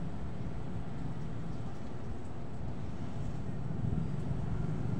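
Steady low background rumble, even throughout, with no distinct eating or utensil sounds standing out.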